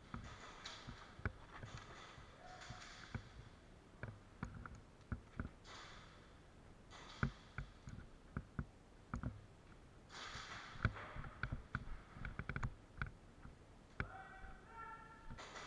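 An airsoft player's close breathing and sniffing, in short bursts every second or two, over scattered sharp clicks and knocks from movement and gear.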